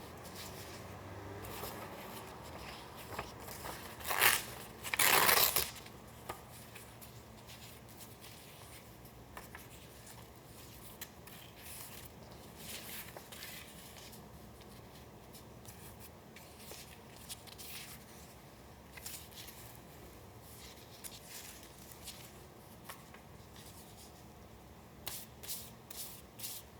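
Paper being torn and handled: two short, loud tears about four and five seconds in, then soft scattered rustles and taps, with a few quick rustles near the end.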